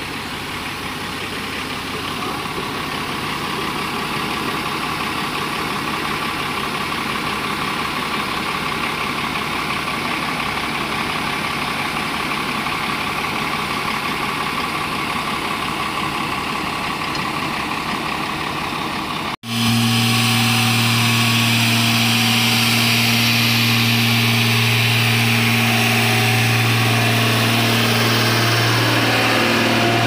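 Diesel engine of a Tata Hitachi 200LC hydraulic excavator idling steadily. After a sudden cut about two-thirds of the way in, a louder, steady engine hum with a strong low drone from a smooth-drum road roller up close.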